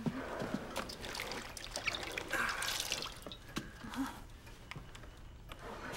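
Water splashing and dripping in a washbasin as a wet cloth is handled over it, with irregular small splashes and drips and a louder splash about halfway through.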